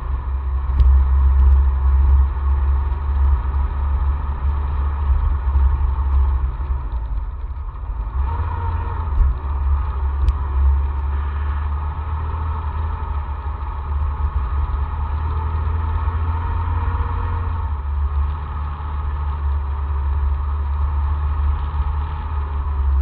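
Mahindra Roxor's 2.5-litre diesel engine running steadily as the vehicle drives, a deep low rumble.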